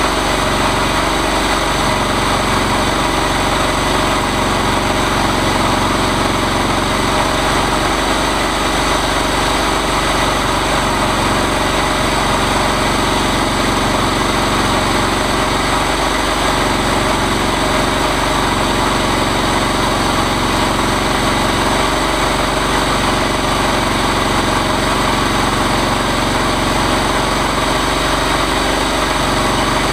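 Engine of a chainsaw mill running steadily at an unchanging speed.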